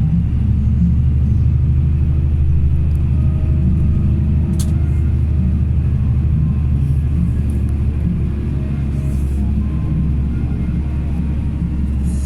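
A motor vehicle's engine running steadily, a constant low rumble, with a faint click about four and a half seconds in.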